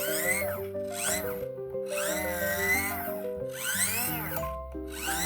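The head-turning gear mechanism of an animated clown prop whirring in repeated strokes, rising and falling in pitch, as the head is turned by hand until the mechanism seats back into place. Background music plays throughout.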